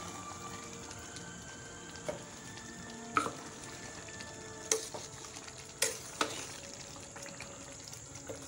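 A pot of beans and plantain in palm-oil sauce simmering with a steady bubbling hiss, stirred with a metal spoon that scrapes and knocks against the stainless steel pot about five times.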